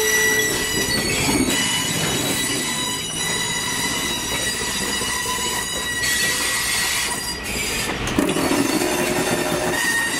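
Steel wheels of old heavyweight passenger coaches rolling slowly past, squealing against the rail with a steady high ring over the rumble of the trucks, and a single sharp knock about eight seconds in.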